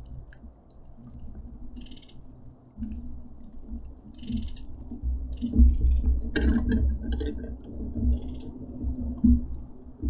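Knocks, thumps and a sharp click from a monkey clambering on a wooden bird-feeder frame, with short high calls repeating every second or two in the background.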